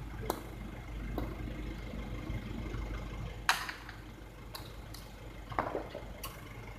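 Hard jai alai ball (pelota) cracking against the fronton wall and floor during a rally: about six sharp, irregular knocks, the loudest a ringing crack a little past the middle. A steady low hum runs beneath.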